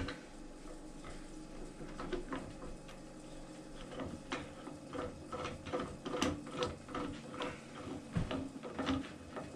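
Small metal clicks and clunks of a Delta 14-inch bandsaw's upper wheel tension assembly being worked by hand and dropped back into its slot in the frame. The taps are irregular and come more often after the first few seconds.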